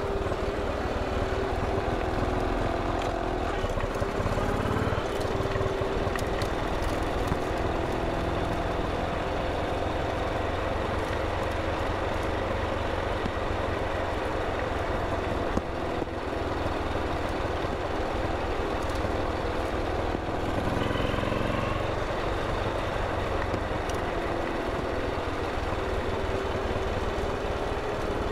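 BMW R27 single-cylinder four-stroke engine running steadily at low revs as the motorcycle is ridden, with the engine note changing about four seconds in and again around twenty seconds in.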